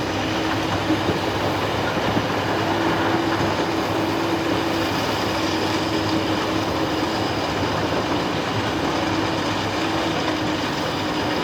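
Excavator's diesel engine running steadily, with a hum that fades out and comes back every couple of seconds.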